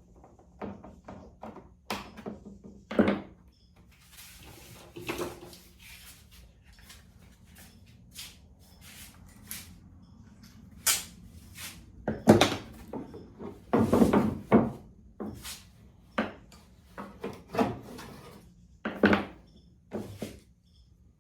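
Workshop handling noises as wooden aircraft parts, the plywood reinforcement and spar pieces, are moved about on the bench: irregular knocks, clunks and clicks, with a cluster of louder clunks a little past halfway.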